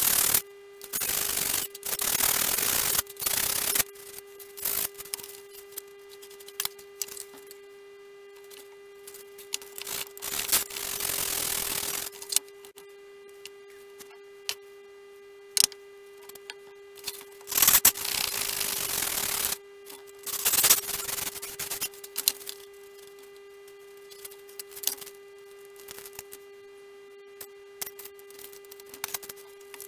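Wooden model-aircraft tail parts being sanded by hand: bursts of scratchy rubbing strokes lasting a second or two, with pauses and small knocks of parts on the bench in between. A steady electrical hum runs underneath.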